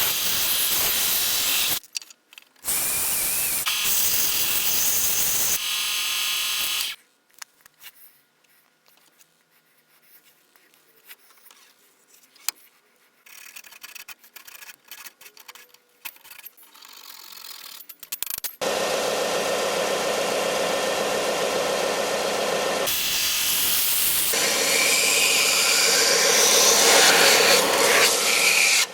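Belt sander grinding wood as a wooden spatula is shaped, with a short break about two seconds in. It stops about seven seconds in, leaving faint handling clicks for about eleven seconds, then runs steadily again with a motor hum for the last ten seconds.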